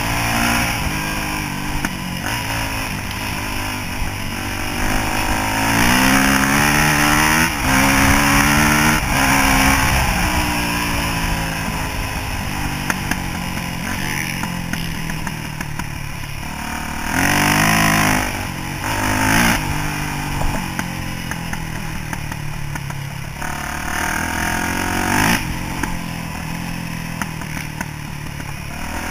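Four-stroke dirt bike engine running under the rider. It revs up several times, each climb in pitch cut off and followed by a drop, as if shifting up through the gears, then eases off between bursts.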